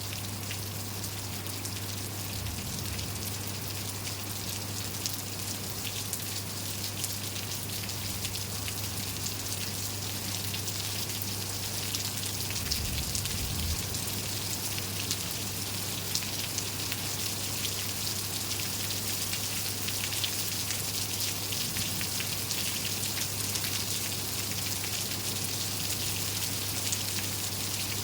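Steady rain falling, with many individual drops striking close by. A steady low hum sits underneath, and there is a brief low rumble about halfway through.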